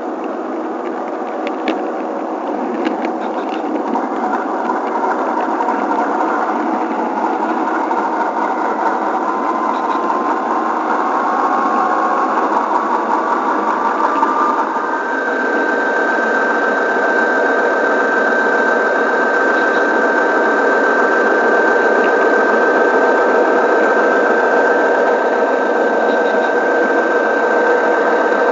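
Model train running along the track: steady whirring and rolling of the wheels and drive, with a whine that rises slowly in pitch and then holds a steady higher tone from about halfway. A couple of sharp clicks in the first few seconds, as the wheels cross turnouts.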